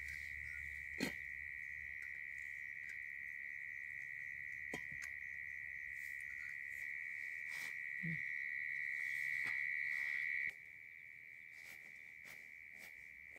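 A cricket's continuous high-pitched trill, dropping in level about ten seconds in. A few sharp clicks and knocks come from a portable gas stove being handled and fitted to its gas canister.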